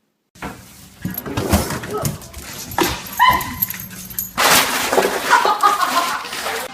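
A dog vocalizing: a few short calls, one pitched call that bends in pitch about three seconds in, among loud bursts of noise.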